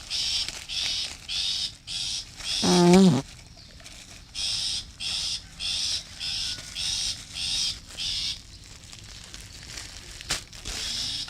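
Long-tailed shrike (cendet) giving short, raspy, hissing calls, repeated evenly about twice a second, with a pause about three seconds in and thinning out near the end. A brief, loud, wavering hum about three seconds in, and a single click a little after ten seconds.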